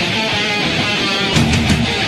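Heavy rock music with distorted electric guitar and drums.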